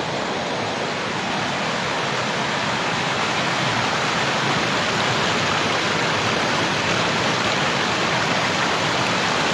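Floodwater pouring at tremendous speed through a breach in a riverbank: a steady roar of rushing, churning water.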